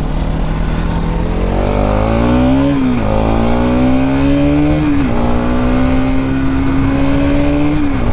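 Bajaj Pulsar NS200's single-cylinder engine accelerating through the gears, its pitch climbing and then dropping at each upshift: about three seconds in, about five seconds in, and near the end.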